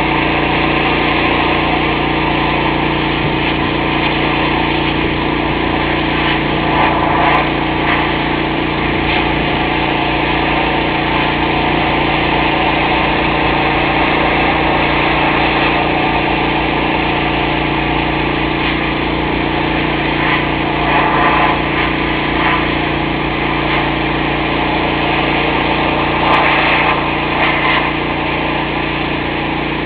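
Pressure washer's engine running steadily, with a few brief louder hissing surges.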